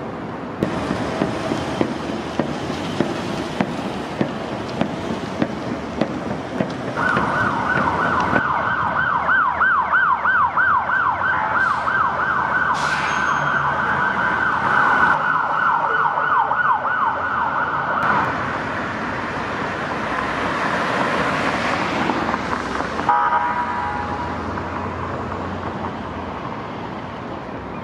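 Hand-held frame drums beaten steadily, a little more than once a second, over traffic noise. Then a police car siren comes in on a fast yelp, wavering about three times a second for roughly ten seconds. A short horn blast follows about three-quarters of the way through.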